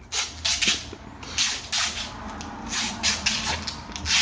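Masking tape being pulled off the roll and wound around a broom handle, in a series of short ripping pulls.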